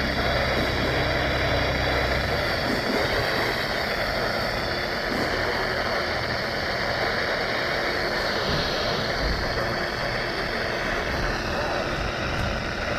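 Steady hiss of static from a radio receiver with no clear signal, with a low hum under it for the first couple of seconds.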